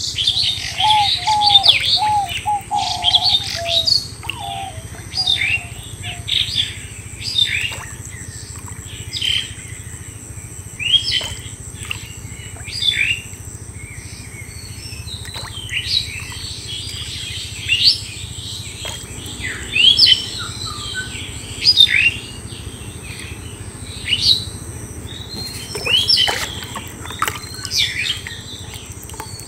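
Birds chirping in the open: short, sharp high calls repeated every second or two, with a lower run of pitched notes from another bird over the first few seconds.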